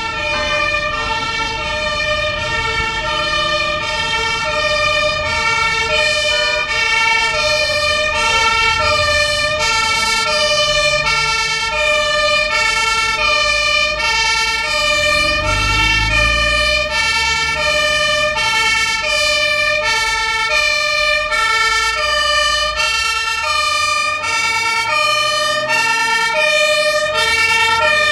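German two-tone siren (Martinshorn) of an approaching MAN fire engine, switching back and forth between two pitches about every 0.7 s and slowly growing louder. A car passes with a low rumble about halfway through.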